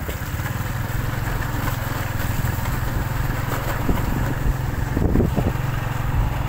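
Small motorcycle engine running steadily at low speed.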